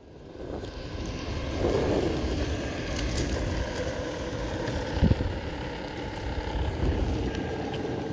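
Electric skateboard's wheels rumbling on rough asphalt while riding, growing louder over the first two seconds as it picks up speed, with wind on the microphone. A single sharp knock about five seconds in.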